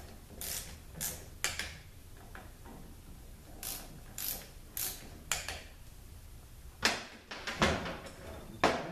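Torque wrench tightening bolts to a set torque: a series of sharp metallic clicks in short runs about half a second apart, with a few louder clacks in the last two seconds.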